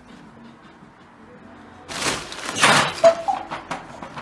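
A pop-up fabric cat tunnel toppling onto a wooden floor as a cat dives into it. A sudden noisy crash comes about two seconds in and lasts about a second.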